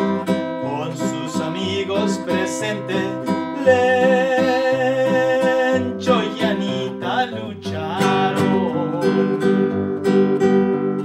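Nylon-string classical guitar strummed to accompany a corrido, with a man's voice singing over it; about four seconds in he holds one long wavering note.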